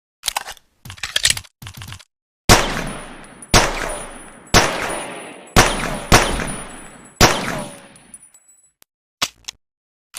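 Pocket pistol firing six shots at uneven intervals, each a sharp crack with a ringing, decaying tail. A few short mechanical clicks come before the first shot, and two more come near the end.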